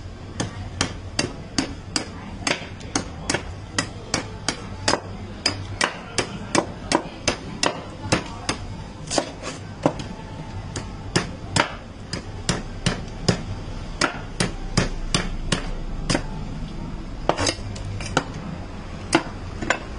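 A large knife chopping repeatedly into a coconut's husk against a wooden block as the husk is trimmed away, sharp strikes at about two a second.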